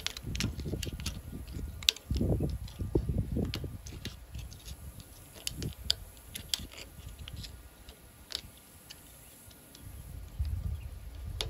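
Small metal clicks and scrapes of a hand tool working the snap ring out of its groove inside a hydraulic cylinder's gland end, over low handling noise.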